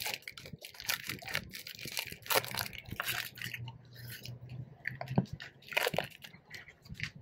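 Foil wrapper of a hazelnut wafer chocolate bar crinkling as it is peeled back, with crisp crunching bites into the wafer and chewing.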